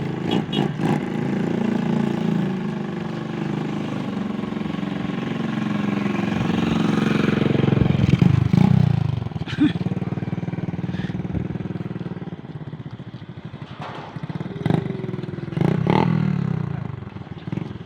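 Motorcycle engine running, speeding up to its loudest about eight seconds in and then easing off, with a few scattered clicks and knocks.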